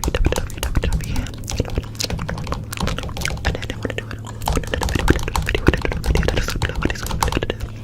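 Rapid, irregular clicking and clattering over a steady low hum.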